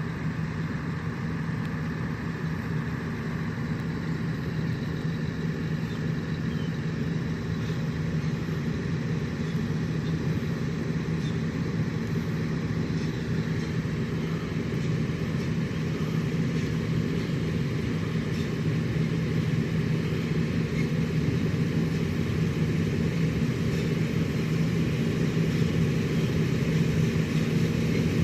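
Engine of a large farm harvest machine running steadily with a low hum, growing a little louder toward the end.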